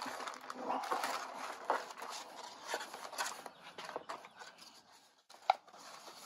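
Plastic wrapping crinkling and paper rustling as hands work the paperwork out of a plastic-wrapped crankshaft in a cardboard box. It goes quieter about four to five seconds in, with one sharp tick just after.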